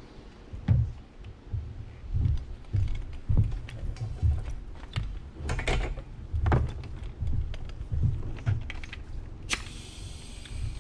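Work boots stepping across a wooden board platform, a dull thud every half to three-quarters of a second, with rattling and clicking from a loaded tool belt and a framing nailer being carried. A short hiss comes near the end.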